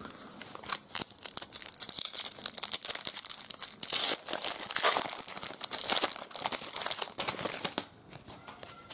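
Foil wrapper of a trading-card pack crinkling and tearing as it is ripped open by hand, loudest about halfway through.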